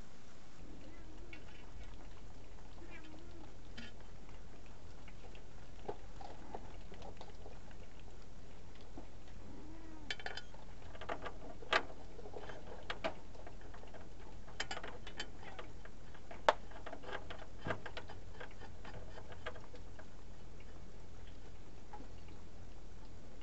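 Metal clicks and clinks of bolts being started by hand into a freshly sealed rear differential cover on its axle housing, with a couple of sharper knocks among them, over a steady low hum.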